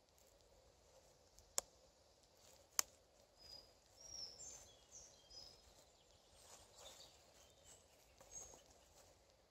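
Near silence with faint handling of wooden sticks and cord, broken by two sharp clicks about a second apart, the sticks knocking together. A few faint, short, high bird chirps.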